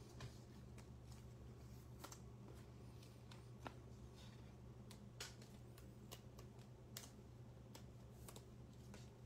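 Near silence over a steady low hum, with faint scattered clicks and ticks of trading cards being handled and set down, about one every second or two.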